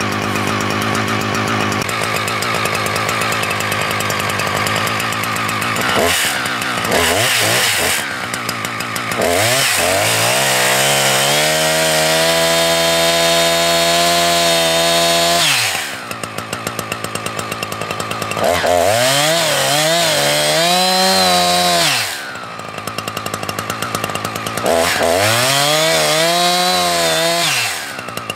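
Husqvarna 359 59 cc two-stroke chainsaw running steadily, then revved up into a cut in a poplar trunk several times, the pitch climbing and holding while it cuts, with the longest cut lasting about six seconds. Between cuts it drops back to idle.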